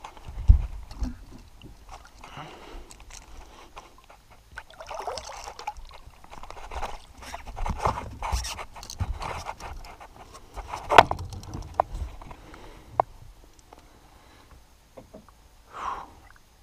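A flathead catfish being landed and handled on a pontoon boat's deck: a loud thud about half a second in and another near eleven seconds, amid irregular knocks, scrapes and rustling as it is held down and unhooked.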